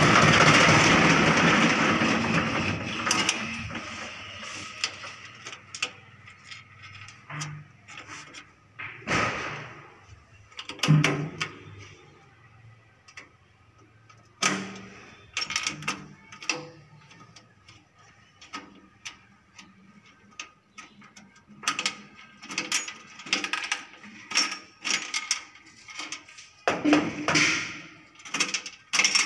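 HMT 2511 tractor's two-cylinder diesel engine running, its sound dying away over the first three or four seconds. After that come only scattered light clicks and knocks.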